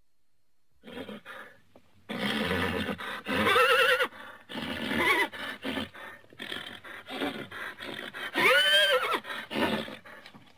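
Horse whinnying: a few high, wavering calls, the longest near the end rising and then falling in pitch.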